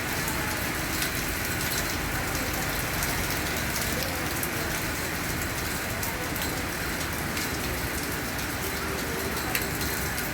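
Steady rain falling on hard surfaces, a constant hiss with many individual drops ticking through it.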